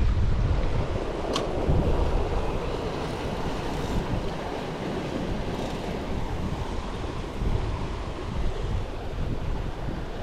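Sea surf washing against a rocky shoreline, with wind buffeting the microphone in a low, steady rumble.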